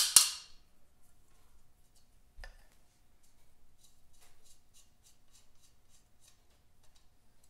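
A few sharp clicks at the very start, then faint hand work on a motorcycle engine's metal oil line fitting: a light knock about two and a half seconds in, then a run of soft quick clicks, about four a second for some three seconds, as the fitting is worked loose by hand.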